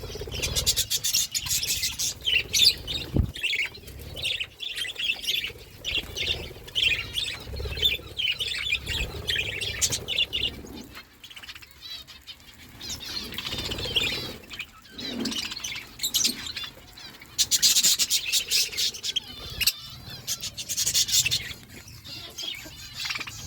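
Budgerigars chirping and chattering continuously, with denser bursts of rapid high chatter about a second in and again past the middle.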